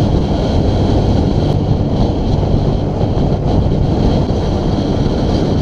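Steady wind rush buffeting the microphone of a camera riding on a road bike moving at speed.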